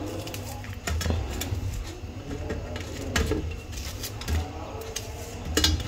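Kitchen knife clicking and scraping against a stainless steel plate as crisp-fried, batter-coated baby potatoes are cut, in a run of irregular sharp taps over a low steady hum.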